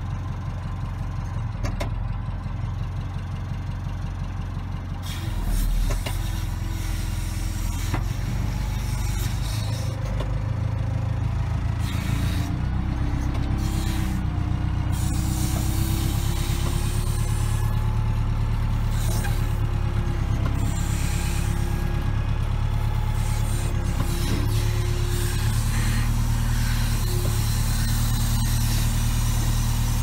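Lännen C110 backhoe loader's diesel engine running under load, heard from inside the cab, while the backhoe arm digs. The engine gets louder about five seconds in, and a hydraulic whine rises and falls in pitch as the arm moves.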